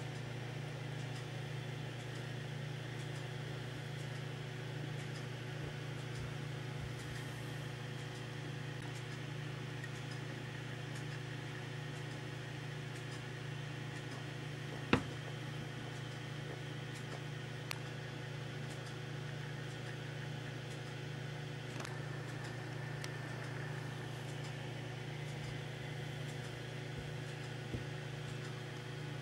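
Steady low mechanical hum that never changes, with one sharp click about halfway through and fainter ticks later on.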